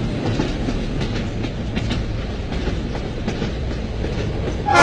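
Passenger train running, heard from inside a coach: a steady rumble and hiss of the wheels on the track, with faint irregular clicks from the rail joints.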